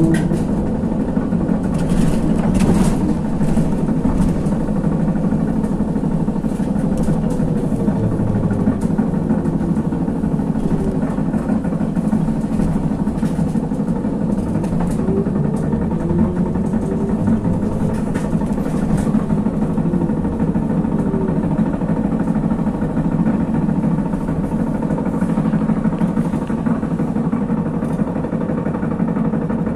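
Inside a ZiU-682G trolleybus in motion: a steady rumble of the running gear and road with scattered rattles. A whine from the electric drive rises and falls in pitch a couple of times as the trolleybus changes speed.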